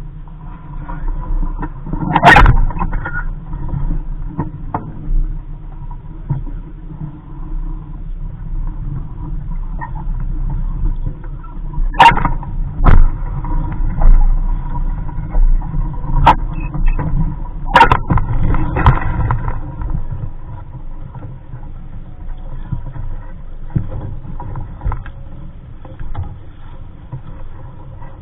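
Wind rumbling on the microphone aboard a small sailboat under way, with a few sharp knocks and clatters about 2, 12, 13 and 18 seconds in.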